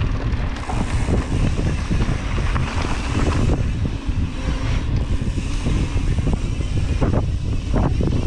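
Wind buffeting the microphone of a mountain bike rider at speed, over the tyres rolling on a dirt trail, with scattered knocks as the bike goes over bumps.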